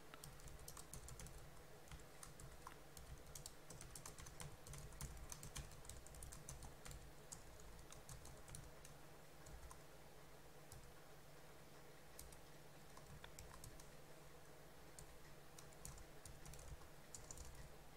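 Faint computer keyboard typing: quick, irregular keystroke clicks, with a low steady hum underneath.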